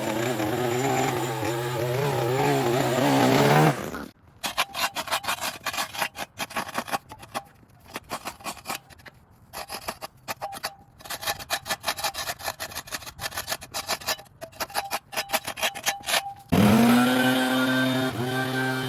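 Small petrol engine running with a wavering pitch. About four seconds in it gives way to a long stretch of rapid, irregular scraping and clattering. Near the end an engine comes back in, rising quickly in pitch and then running steadily.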